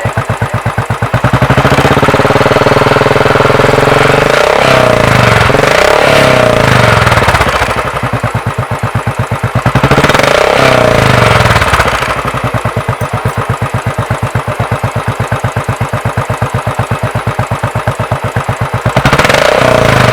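Royal Enfield Classic 500's single-cylinder engine running through a newly fitted aftermarket skirt-type barrel silencer, idling with a steady thump between throttle openings and revved up three times: near the start, about halfway through, and near the end.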